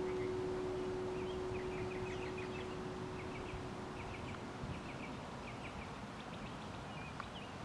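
The last vibraphone note rings on and fades out over the first few seconds. Under and after it, outdoor ambience with small birds chirping in short, quick notes.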